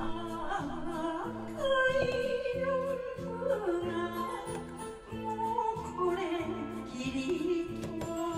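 A woman singing an enka song into a microphone over a karaoke backing track, her long held notes wavering with vibrato above a steady, repeating bass accompaniment.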